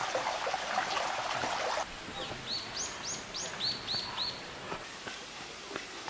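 Water running from a dragon spout into a stone purification basin, a steady splashing trickle for the first couple of seconds. Then a bird calls a quick run of about eight high, clear notes, the later ones lower.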